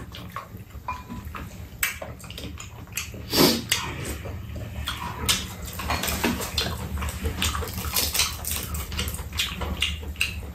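Close mealtime eating sounds: wet chewing and slurping, with chopsticks and spoons clicking against bowls, over a steady low hum.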